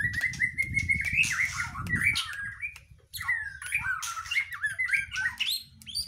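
White-rumped shama (murai batu) singing in its cage: a held whistle that rises slightly over the first second, then a run of varied quick chirps and warbles broken by sharp ticks.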